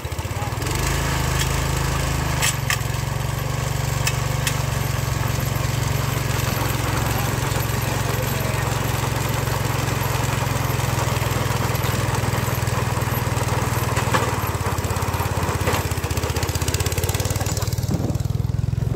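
Small rototiller engine running hard, its speed stepping up about two seconds in and then held steady under throttle, easing off near the end.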